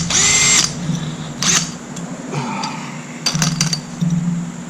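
Several short, sharp metallic clinks and rattles of hand tools and small bolts being handled, the first with a brief ringing, as bolts are taken off an A/C line block. A low steady hum runs underneath.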